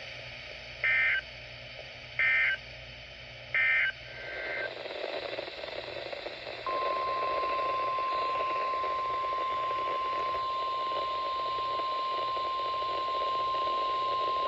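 Emergency alert signalling over a weather radio: three short warbling data bursts about 1.3 s apart, the SAME end-of-message code closing the warning, then about seven seconds in a steady single 1050 Hz warning alarm tone that announces the next warning, all over receiver hiss.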